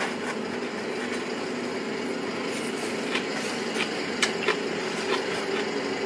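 A steady room hum with a few faint tones in it, typical of an air-conditioning unit. Over it come scattered short clicks and taps from eating noodles with chopsticks out of a takeaway bowl.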